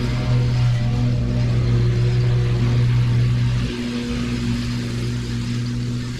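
Small petrol engine of a piece of grounds-care machinery running steadily at working speed. About four seconds in it eases off slightly and then carries on.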